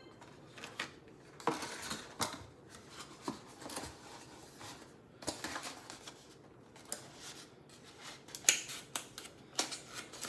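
Scattered light clicks, taps and rustles from hands handling small objects on a table, irregular and spaced a second or so apart.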